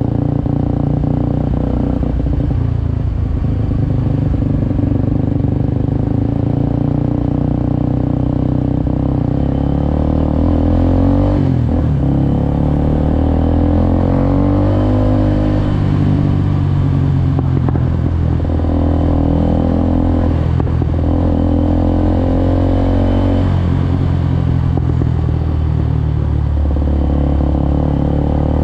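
Suzuki Gixxer SF 250's single-cylinder engine under way on the road. It revs up and drops back several times in the second half, as it would through gear changes.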